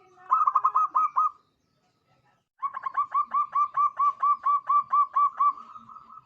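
Zebra dove (perkutut) cooing: a short rapid run of staccato notes, a pause of about a second, then a longer even series of about fifteen notes at roughly five a second that trails off near the end.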